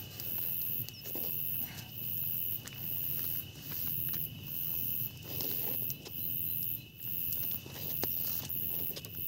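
Insects chirping in a steady rhythm, one very high-pitched pulse a little more often than once a second, over a continuous high-pitched trill, with a few light knocks and taps.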